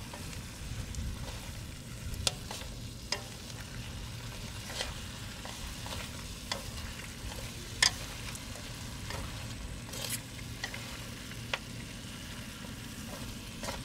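Chopped snake meat sizzling in a metal wok as it is stir-fried with wooden chopsticks, the chopsticks now and then clicking sharply against the pan.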